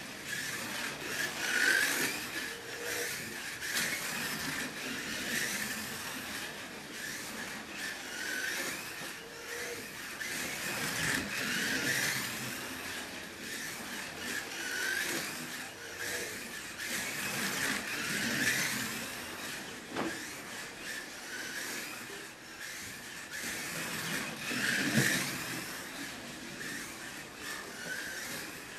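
1/32-scale slot car (a Shelby Daytona Coupe body on a heavy chassis) running laps on a routed track, its small electric motor whining along with the tyre and guide noise. The whine swells and glides up and down every few seconds as the car is driven hard down the straights and out of the corners. A single sharp click is heard about two-thirds of the way through.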